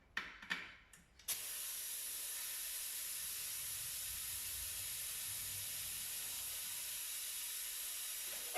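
A few short clicks and knocks, then compressed air starts with a sudden steady hiss about a second in and keeps going: the tyre machine's air line inflating a newly fitted tyre to seat its beads on the rim.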